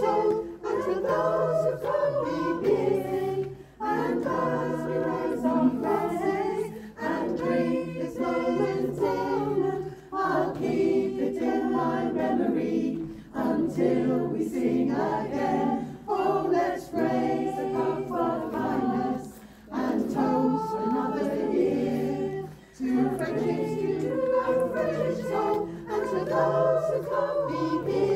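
Mixed choir of men and women singing a cappella, with the sung phrases broken by short pauses every few seconds.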